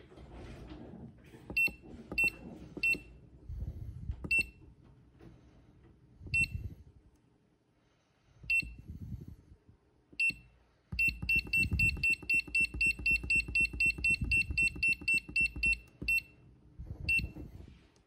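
Hyperion EOS 0606i hobby battery charger beeping at each key press while being set to discharge NiCd cells. Single short high beeps come a second or two apart, then a fast even run of about five beeps a second lasts some five seconds, with dull knocks from the keys underneath.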